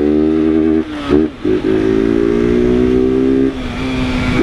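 Honda CG Fan 160's single-cylinder four-stroke engine running loudly under way with its air filter removed. It pulls at steady revs, breaks off briefly about a second in for a quick gear change, pulls on, then drops to a lower note near the end as the throttle eases.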